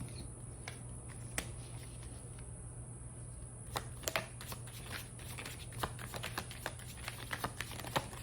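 A deck of oracle cards being shuffled and handled: irregular soft clicks and flicks of card on card, scattered at first and coming more thickly in the second half, over a faint steady low hum.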